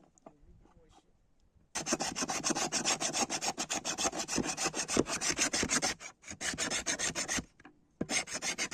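Rapid rasping or scraping strokes, many a second, in three runs with two short pauses.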